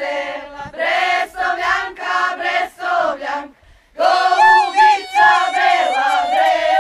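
A group of women singing a Croatian folk song together, voices only with no instruments, in loud phrases. The singing breaks off for a moment about three and a half seconds in, then starts again on a long held high line.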